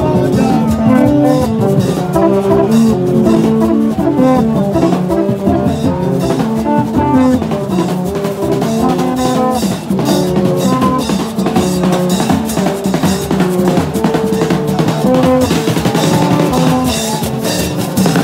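Haitian rara street band playing: drums beating steadily under bamboo trumpets (vaksen) sounding short, stepping notes in a repeating tune.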